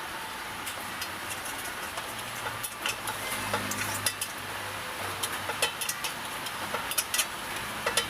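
Steady hiss of heavy rain, with irregular sharp clicks and clinks from about two and a half seconds in and a low hum in the middle.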